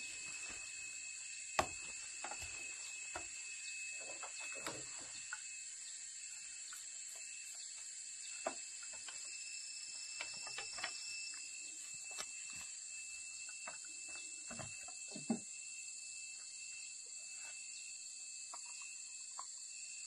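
Steady high-pitched insect chorus, with scattered soft knocks from bare feet on a wooden ladder and from handling a tool, and a few sharper clicks about one and a half, eight and fifteen seconds in.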